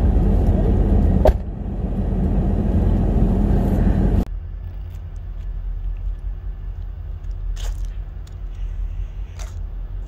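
Low rumble of a car in motion, heard from inside the cabin, with one sharp click about a second in. It cuts off suddenly about four seconds in, giving way to a quieter, steady low hum with a few faint ticks.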